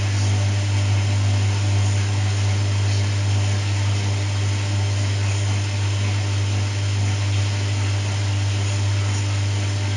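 Washing machine running: a steady low motor hum with a mechanical hiss and light rattle over it.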